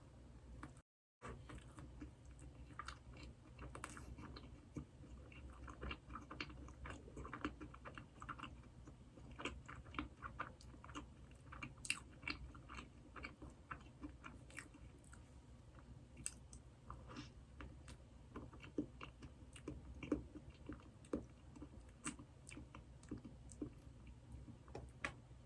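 Close-miked chewing of Krispy Kreme doughnuts: many soft, small wet clicks and crackles of mouth sounds over a faint low hum, with a brief silent dropout about a second in.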